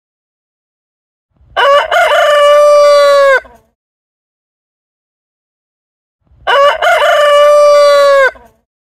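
Rooster crowing twice, each cock-a-doodle-doo about two seconds long, a few seconds apart, with dead silence between the crows.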